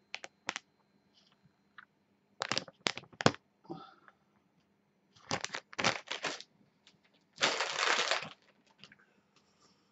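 A metallised anti-static plastic bag crinkling and crackling as it is handled, in several short bursts of sharp crackles, then a longer rustle about three quarters of the way through as the wire coil is taken out.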